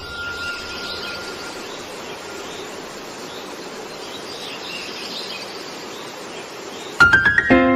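Nature ambience on a backing track: a steady hiss of insects with bird chirps repeating over it, and a single held tone fading out in the first second or so. About seven seconds in, a quick run of rising notes starts the music.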